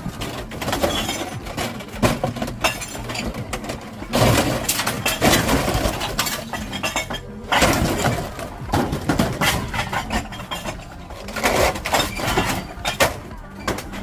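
Vinyl siding being torn off a house wall: irregular cracking, snapping and clattering of the plastic panels, loudest in bursts about four seconds in, near the middle and toward the end.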